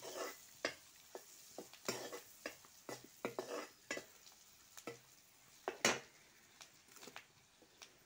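A spatula stirring and scraping spices frying in oil in a kadai. It makes irregular scrapes and clinks against the pan, the loudest about six seconds in, over a faint sizzle that fades near the end.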